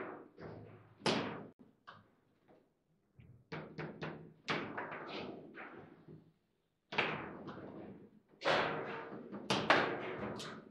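Foosball table in play: the ball striking the player figures and the table's walls, with rods clacking, as irregular sharp knocks with short ringing tails. A cluster of the hardest strikes comes near the end.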